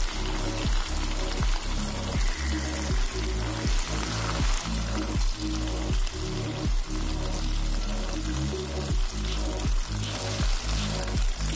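Chicken pieces shallow-frying in hot oil, sizzling steadily, under background music with a steady beat.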